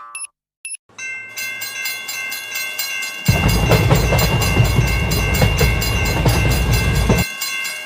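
Railway level-crossing alarm ringing its repeated 'kan-kan' strokes, several a second. From about three seconds in until shortly before the end, a train rumbles past through the crossing.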